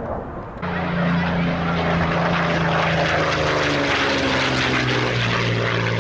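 Propeller aircraft engine running steadily. It cuts in abruptly about half a second in, and its tone drops a little about five seconds in.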